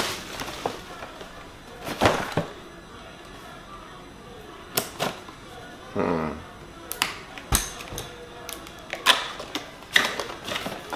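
A product box being opened by hand with scissors: scattered sharp clicks, snips and taps of the blades and cardboard, with plastic packaging handled.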